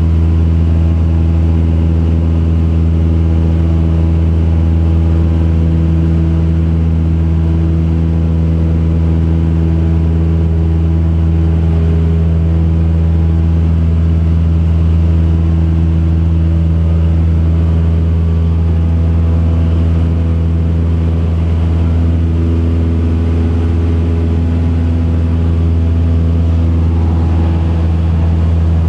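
Single-engine light aircraft's piston engine and propeller droning steadily in flight, a loud, even low hum.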